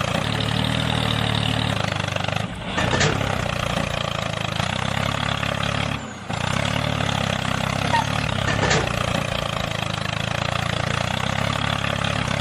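A small engine running steadily like an idling tractor, with a brief dip about two and a half seconds in and again about six seconds in, and a sharp click near each dip.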